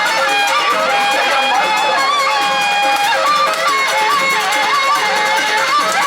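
Traditional Indonesian music at a stick fight: a continuous, wavering high melody with pitch slides on a reedy wind instrument, over steady percussion.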